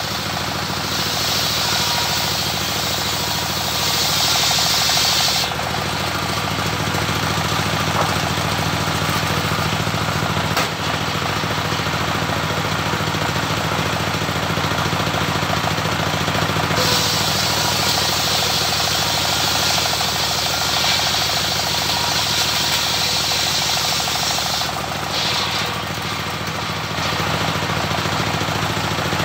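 Single-cylinder stationary diesel engine running steadily with a knocking beat, driving a homemade circular saw. Near the start, and again for several seconds in the second half, a higher hiss rides over it as the blade cuts through waru (sea hibiscus) wood.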